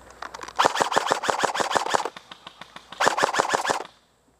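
Airsoft SCAR-L rifle firing two full-auto bursts of rapid clicking shots, about a dozen a second. The first burst lasts about a second and a half, the second under a second, about a second later.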